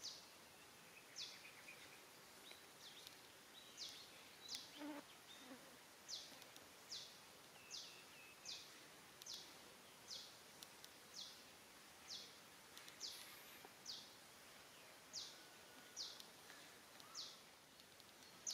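A small bird calling over a quiet background: a high, thin note that sweeps quickly downward, repeated evenly about five times every four seconds.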